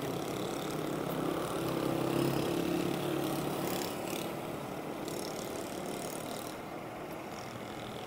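Motor vehicle engine running with road noise. The steady engine hum grows louder about two seconds in, then fades gradually.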